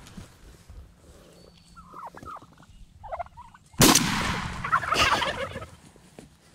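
Wild turkeys calling: a few soft short clucks and yelps, then about four seconds in a sudden loud sound followed by a loud burst of gobbling lasting a second or two.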